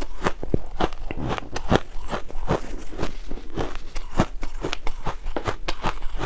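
Hard ice being bitten and chewed close to the microphone: a rapid, irregular run of sharp crunching cracks.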